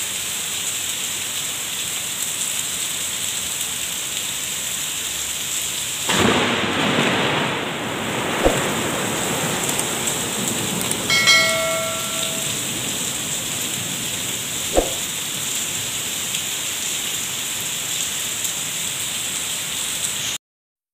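Heavy rain falling as a steady hiss, swelling into a louder rush for about two seconds around six seconds in. Two sharp knocks and a short beep stand out over it, and the sound cuts off suddenly near the end.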